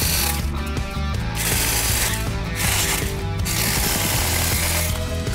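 ETOOLAB 5-inch cordless mini chainsaw running and cutting through dry, dead branches, its rattling, hissing cut noise coming and going in several stretches.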